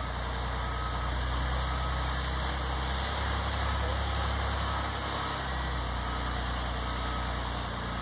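An engine idling with a steady low rumble that swells slightly now and then.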